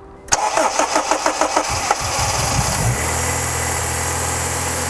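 Honda Civic Type R EP3's K20A2 four-cylinder engine cranking on the starter for about a second and a half, catching, then settling about three seconds in to a steady fast idle. This is the first start after an inlet manifold swap, and the high idle comes from an air leak the owner later traced, which had it running at about 2,500 rpm.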